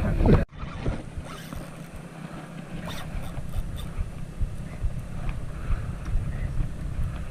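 Low, steady rumble of boat and wind noise on an offshore fishing boat, with scattered small clicks. The sound drops abruptly about half a second in and carries on quieter.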